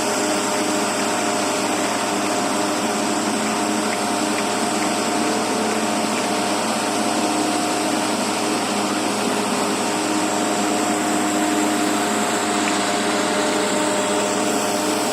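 Excavator running steadily: diesel engine with a hydraulic whine.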